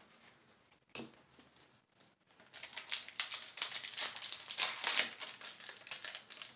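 Foil wrapper of a Yu-Gi-Oh booster pack crinkling and tearing as it is pulled open. The crinkling is dense and irregular and starts about two and a half seconds in. A single light click comes about a second in.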